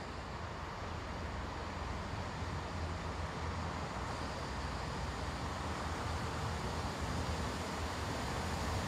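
Great Western Railway diesel multiple unit approaching along the platform, its engine and wheels making a steady rumble that grows slowly louder. A faint high whine joins about four seconds in.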